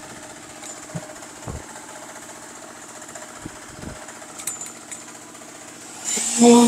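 A small engine running steadily in the background of a concrete pour, with a few soft thumps. About six seconds in, a much louder steady machine tone sets in.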